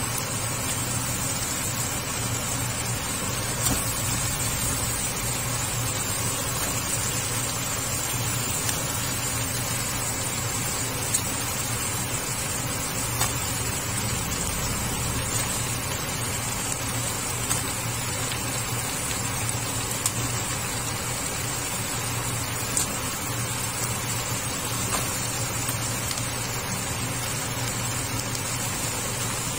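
Crabs frying in a pan with tomato and onion, sizzling steadily with a few small pops, over a steady low hum.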